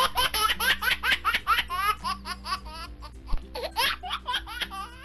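High-pitched laughter in quick short bursts, like a baby or small child giggling, over steady background music.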